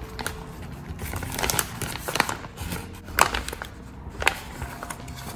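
Plastic film packaging crinkling and rustling as hands pull it open, with a few sharp crackles.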